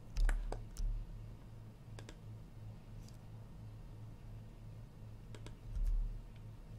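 Scattered clicks of a computer mouse and keyboard while working at a desk: several close together in the first second, a single one about two seconds in, and a pair about five and a half seconds in. Two dull low thumps come near the start and about six seconds in, over a low steady hum.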